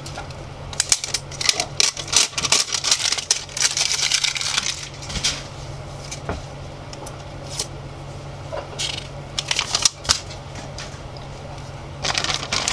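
Hands handling and unwrapping a plastic Party Pop Teenies popper toy: irregular crinkling and rustling with many small sharp clicks, over a steady low hum.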